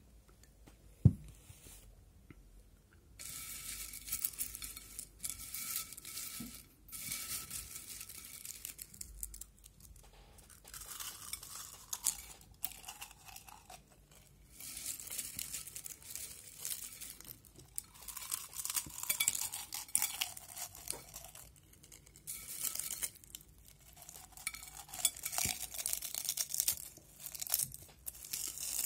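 A single sharp knock about a second in, then spells of crackling crunching and crinkling, a few seconds each with short pauses, from potato chips and their bag being handled and eaten close to the microphone.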